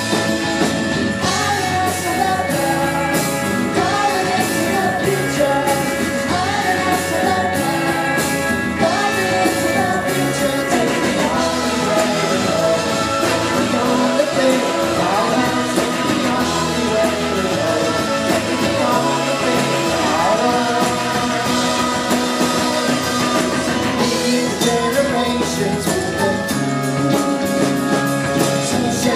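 Live rock band playing, with a woman singing lead over electric guitars and the rest of the band, loud and continuous throughout.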